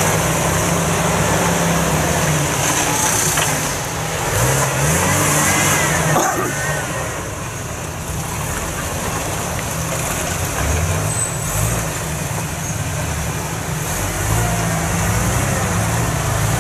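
Jeep Wrangler TJ's engine revving in repeated surges, pitch climbing and dropping as it drives through mud, with a stronger rev near the end.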